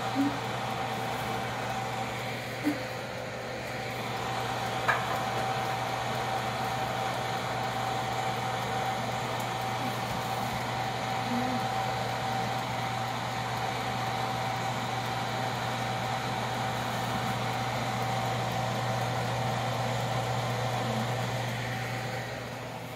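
Countertop electric convection oven's fan running with a steady hum and a thin steady whine, while metal baking pans are handled in it, giving a few sharp clinks in the first five seconds. The hum falls away near the end.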